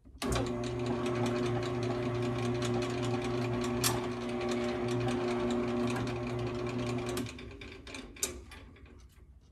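Benchtop drill press starting up, its motor running with a steady hum as the bit cuts the aluminium engine plate. It is switched off about seven seconds in and spins down.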